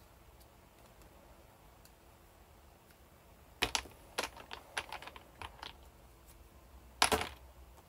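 Light clicks and taps of 18650 lithium-ion cells being handled against hard plastic holders, starting a little over three seconds in, then one sharp clack near the end.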